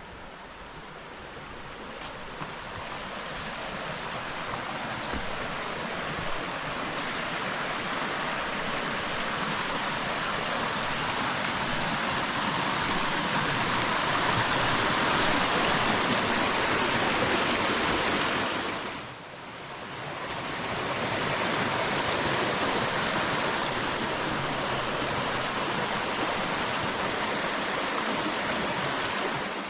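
A steady rushing noise, like flowing water or wind, builds over the first fifteen seconds. It dips sharply for about a second just after nineteen seconds, then holds steady again.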